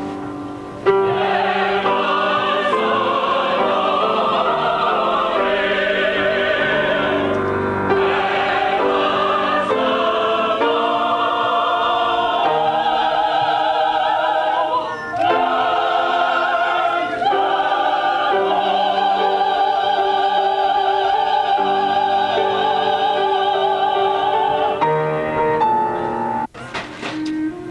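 Mixed choir of men and women singing a sustained, slow piece in parts. It starts about a second in and breaks off abruptly near the end.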